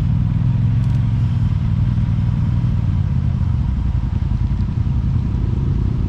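Off-road vehicle engine running steadily at low revs while crawling over rocks.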